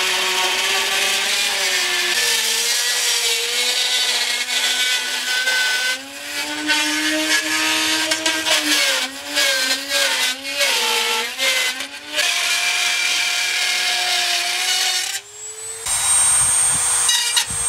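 Dremel rotary tool with a circle-cutter attachment running as it cuts a round hole through soffit panel. Its high whine sags and wavers in pitch as the bit bites into the cut. It stops briefly near the end and then starts up again.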